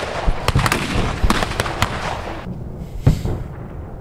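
Battlefield rifle fire with blank rounds: many scattered shots crackling over one another, thinning out about two and a half seconds in, with one louder single shot just after that.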